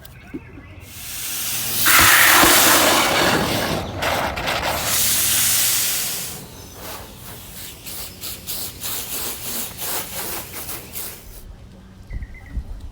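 Water spraying onto a car while it is washed: a loud steady hiss for about five seconds, then a patchier spatter of shorter spurts that stops near the end.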